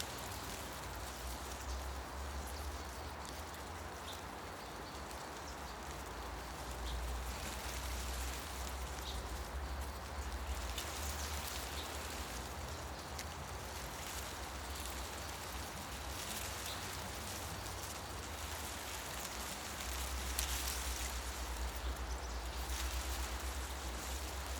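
Wind stirring tree leaves, a steady rustling hiss that swells and eases, growing louder about seven seconds in and again near the end. A few brief, faint bird chirps.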